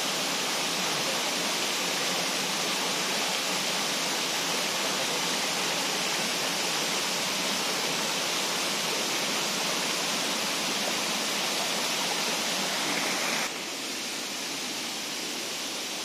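Large waterfall pouring steadily, a dense, even rush of falling water. Near the end it steps down suddenly to a slightly quieter, duller rush.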